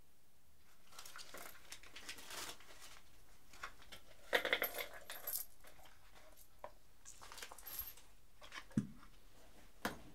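Faint handling sounds as a small wooden box is held and opened: rustling, with light clicks and clinks, the loudest cluster about four seconds in and single clicks later.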